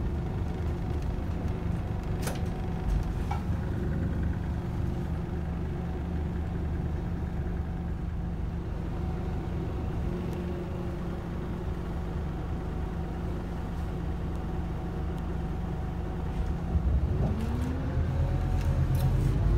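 Scania K280UB Citywide LE bus's diesel engine heard from inside the cabin, running with a steady low hum. A couple of short knocks sound two to three seconds in. Near the end the engine revs up, its pitch rising and the sound growing louder as the bus accelerates.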